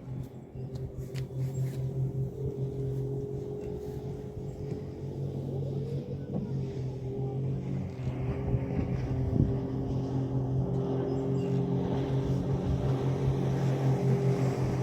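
An engine running steadily at an even speed, a low drone with a steady pitch, growing a little louder partway through.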